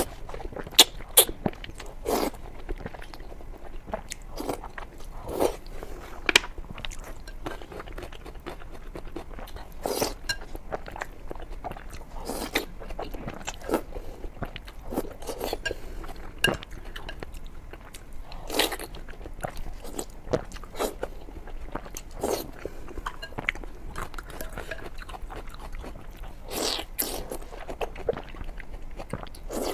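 Close-miked eating: irregular crunchy bites and chewing, with a sharp crunch every second or two.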